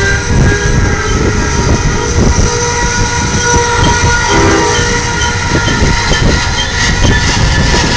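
Loaded coal hopper cars of a freight train rolling past close by: a loud steady rumble of steel wheels on the rails with continual clacking. Thin, steady high-pitched tones come and go over it.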